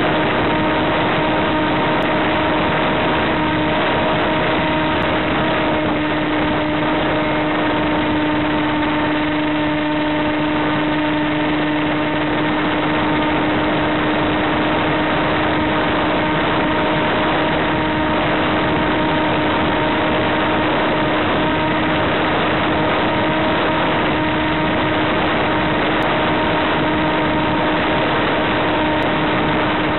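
Electric motor of an FPV model plane running at a steady cruise throttle: an even hum under a constant rushing noise, with no change in pitch.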